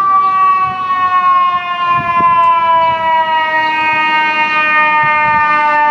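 FDNY fire truck siren wailing on an emergency run, one long continuous tone sliding slowly down in pitch.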